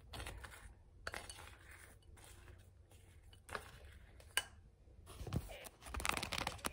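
A spoon stirring dry almond flour and chocolate chips in a ceramic bowl: faint scraping with light clinks against the bowl, one sharper clink a little past the middle, and a denser stretch of scraping and rustling near the end.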